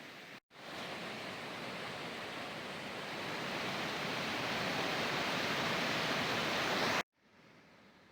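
Steady rushing of a glacier-fed mountain waterfall, growing louder. It cuts off abruptly about seven seconds in.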